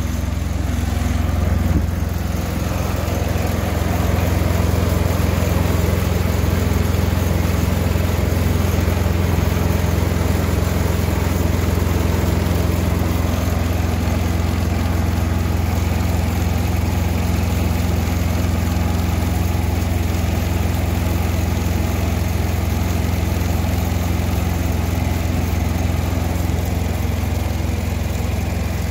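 Freightliner semi truck's diesel engine idling steadily: a constant low drone.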